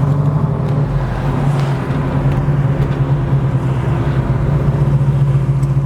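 1967 Chevrolet Chevelle's 396 big-block V8 running steadily, a low pulsing exhaust note through headers and Flowmaster dual exhaust.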